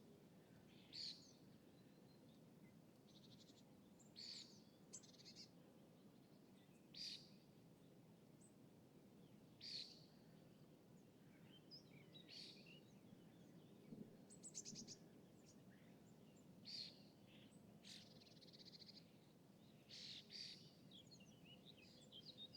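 Faint lakeside ambience: small birds give short, high chirps every two or three seconds, with a few brief buzzy trills, over a steady low background hum.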